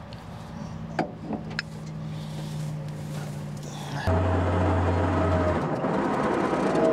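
A few metallic clinks over a steady low engine hum as a recovery line is rigged on an overturned pickup. About four seconds in, a louder engine running close by with a steady whine: the Dodge M37 wrecker's flathead six.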